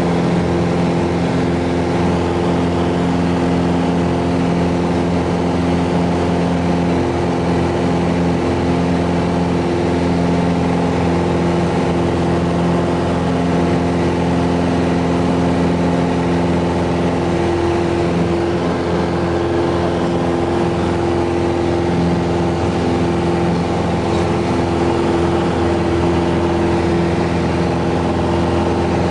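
Piper PA-28-161 Warrior's four-cylinder Lycoming O-320 engine and propeller running steadily at takeoff power through lift-off and the climb-out, heard inside the cabin.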